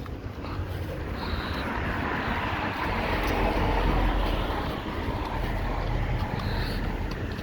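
Street traffic: a motor vehicle's engine and tyre noise swelling through the middle and easing off, with a deep rumble underneath.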